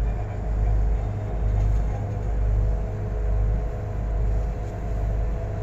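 Cruise boat's engine droning with a steady hum, under a heavy low rumble that swells and fades about once a second.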